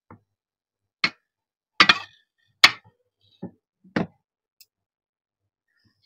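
Eating sounds during a meal challenge: about six short, sharp clicks and taps, scattered between about one and four seconds in.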